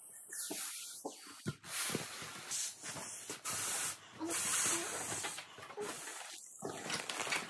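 Air hissing out of silver foil balloons as they are pressed flat, with the foil crinkling under the hands.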